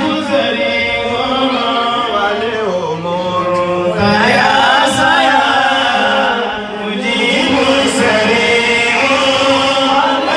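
A man's voice chanting a melodic religious recitation into a microphone, with long held and gliding notes.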